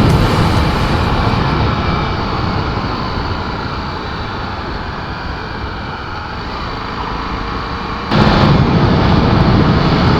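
Steady rushing wind and engine noise from a Honda XR250 Tornado under way, picked up by an action camera's microphone. The level jumps up abruptly about 8 seconds in.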